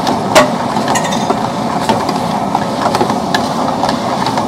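Indo-Chinese wok cooking: a steady rushing noise of the wok burner and frying while crispy chicken is tossed in its sauce. A metal ladle clinks against the wok a few times, sharpest just under half a second in.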